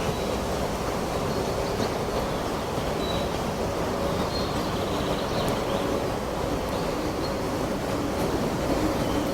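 Wind blowing steadily through a forest as a continuous low rumbling noise, with a few faint, short bird chirps scattered through it.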